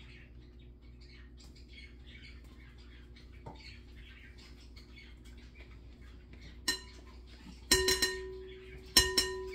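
Three sharp clinks of metal against a glass mixing bowl, spaced about a second apart in the last third, each leaving the bowl ringing. Before them there is faint high chirping.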